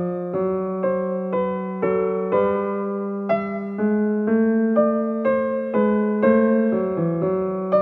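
Background music: gentle keyboard (electric piano) playing a steady run of notes, about two a second.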